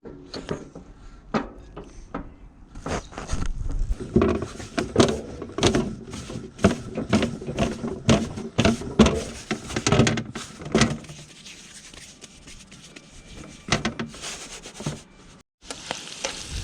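Pizza dough being mixed and kneaded by hand: irregular knocks and rubbing, busiest in the middle, with a brief break near the end.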